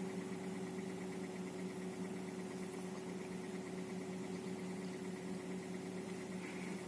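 Hyundai Solaris 1.4-litre engine idling steadily while warming up, a constant low hum with no revving.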